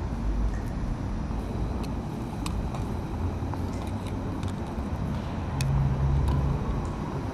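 Steady low rumble of a gas canister camping stove burning under a pot of water, with a few faint ticks. It swells briefly about six seconds in.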